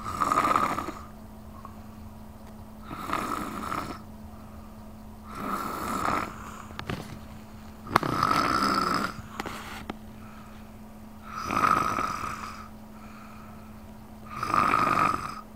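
A sleeping baby snoring: six snores, each about a second long, coming about every three seconds.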